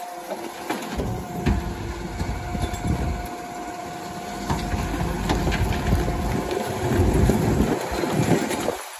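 Rear-loader garbage truck's diesel engine running steadily at idle, with a few clanks and knocks.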